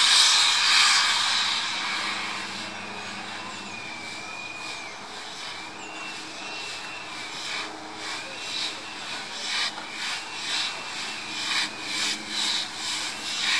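BR Standard Class 4 tank steam locomotive 80072 working towards the camera. Its cylinder drain cocks hiss loudly at first and die away over about two seconds. From about eight seconds in its chimney exhaust beats, about two a second.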